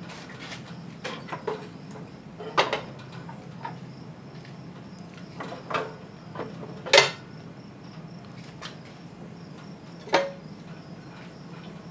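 Scattered metal clunks and knocks as the Ford Jubilee's cast-iron engine block is worked into line with the tractor's transmission bell housing, the heaviest knock about seven seconds in. A steady low hum runs underneath.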